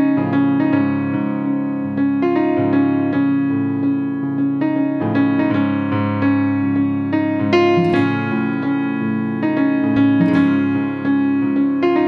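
Background music played on a piano-like keyboard: held chords and notes that change every couple of seconds.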